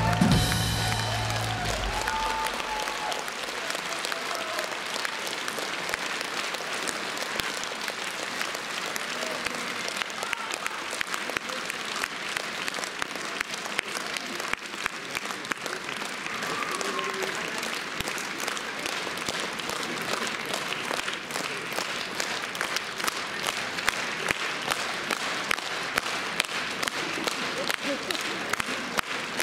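The band plays its last chord of the song, which dies away in the first couple of seconds. A large concert audience then applauds steadily, with single claps standing out more sharply near the end.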